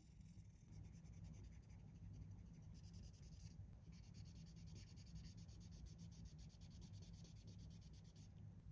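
Faint, fast scratchy rubbing made of many quick strokes. It pauses briefly in the middle and stops near the end.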